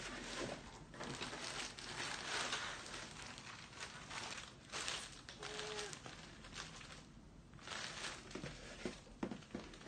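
Plastic packaging crinkling and rustling in irregular bursts as a plastic-wrapped travel pouch set is handled and lifted out of a cardboard shipping box, with a few sharp clicks near the end.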